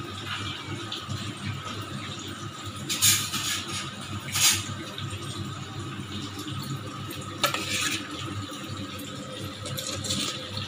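Metal spoon stirring and scraping through curd-covered onion and tomato in a stainless steel bowl as raitha is mixed: a few short wet swishes and scrapes, about three and four and a half seconds in, again near eight seconds and near the end, over a steady low hum.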